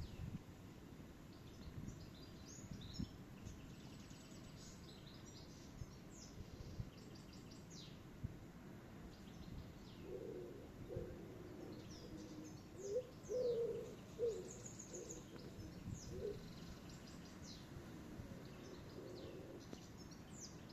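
Several birds chirping and trilling in short high bursts, with a lower repeated bird call about halfway through, over a low rumbling background noise.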